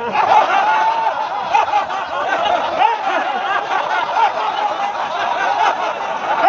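A large crowd of people laughing loudly together on cue: deliberate group laughter done as a laughter-yoga exercise, many voices overlapping into one steady mass.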